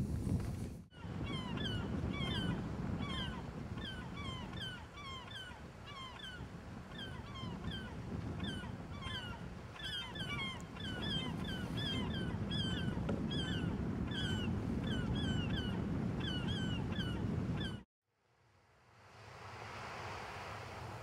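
Many birds giving short, harsh calls in quick succession, over a steady low rumble. Near the end the sound cuts off abruptly and a soft hiss fades in.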